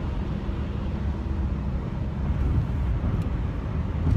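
Steady road and engine noise heard inside a moving Buick LeSabre's cabin: a low rumble with a faint engine hum.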